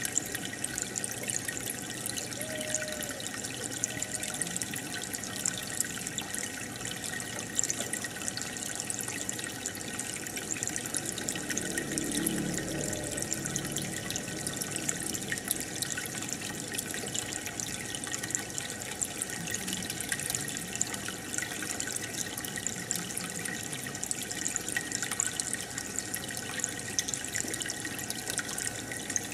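Aquarium aeration: a steady stream of air bubbles rising and breaking at the water surface, giving a constant watery trickle and fine crackling patter.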